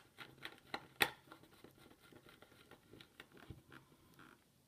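Light clicks and taps of plastic diffuser parts being handled as the new ceramic disc and its wires are pressed into place in the well, with the loudest click about a second in.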